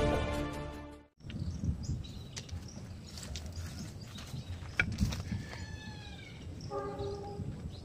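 Intro music fading out within the first second, then outdoor ambience with a few scattered knocks and two short animal calls, likely birds, near the end.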